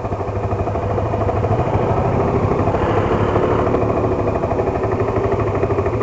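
Motorcycle engine running steadily while riding, with a rapid, even pulsing.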